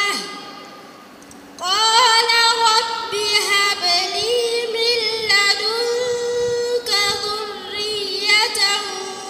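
A girl's voice reciting the Qur'an in melodic, drawn-out chant, through a microphone. After a breath pause of about a second and a half near the start, long held and ornamented notes follow in continuous phrases.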